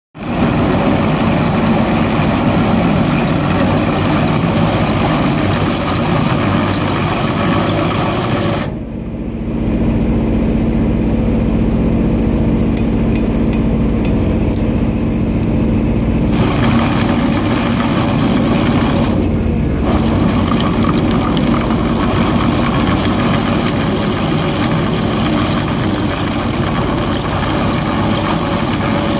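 Excavator running a hydraulic chain trencher attachment, the digging chain grinding through the trench soil over the engine. About nine seconds in, the hiss and clatter drop away for several seconds, leaving a steady hum, then the full noise returns.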